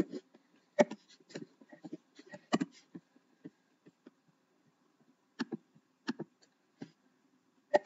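Irregular clicks of a computer mouse and keyboard, some in quick pairs, with a pause of a second or so in the middle.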